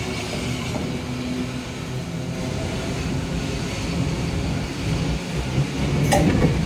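A Randen electric tram running on the track, a steady low rumble of wheels and running gear. A single sharp click comes about six seconds in.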